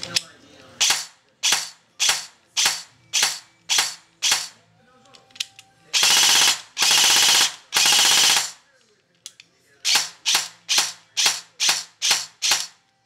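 Exposed ICS G33 airsoft electric gearbox, wired to a mosfet with active braking, cycling under trigger pulls. About seven single shots come roughly every half second, then three short full-auto bursts, then another quicker string of about eight single shots.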